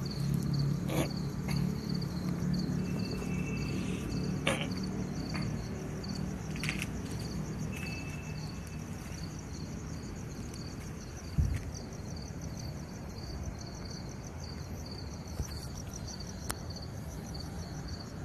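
Insects chirping steadily in the background, a fast even pulsing high in pitch. There are a few faint clicks, and a short dull thump about eleven seconds in.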